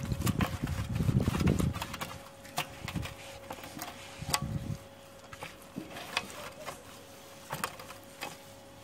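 A cloth wiping the lid of a Weber kettle barbecue: rubbing noise in the first two seconds and again briefly about four seconds in, then scattered light clicks and taps over a faint steady hum.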